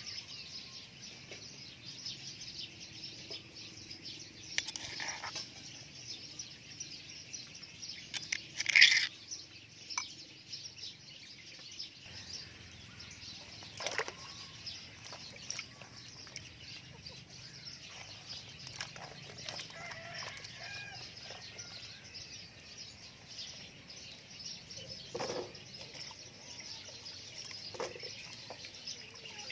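Chickens clucking around the yard over a steady high hiss, with a few short sharp knocks and clatters scattered through; the loudest comes about nine seconds in.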